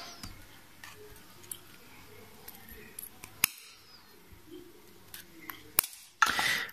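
Small side cutters snipping the excess wire of a freshly wound 24-gauge 316L stainless steel vape coil on a coil jig: two sharp snips, one about halfway and one near the end, among faint clicks of the tools being handled.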